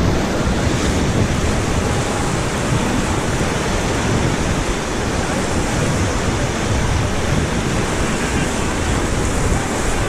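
Steady rush of whitewater river rapids around an inflatable raft, with wind on the microphone.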